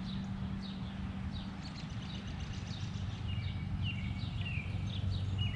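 Birds calling: a rapid, repeated series of short falling chirps over a steady low hum.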